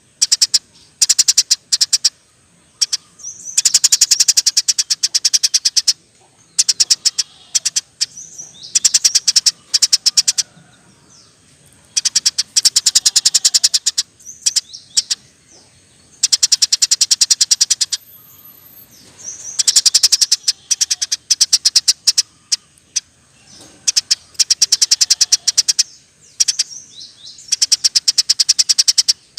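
Eurasian tree sparrow chirping in fast rolling trills: high-pitched bursts of rapid chirps, each a second or two long, broken by short pauses.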